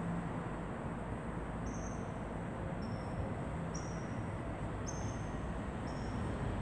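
Short, high-pitched chirps from a small animal, about five of them roughly a second apart, over a steady low rumble of background noise.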